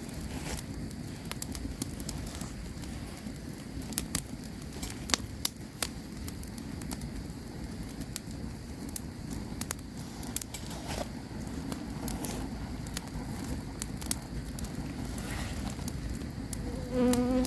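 Campfire burning: a steady low rush of flames with irregular sharp crackles and pops. Near the end, a buzzing insect comes in close.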